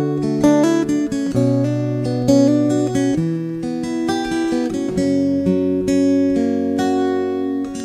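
Acoustic guitar played solo as a song's introduction, picked chords ringing, with the bass note changing about every two seconds.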